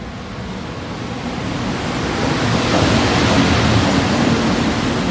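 EF210 electric freight locomotive running light through a station, a rushing rumble of steel wheels on rail that swells to its loudest about three seconds in and then eases as it goes by.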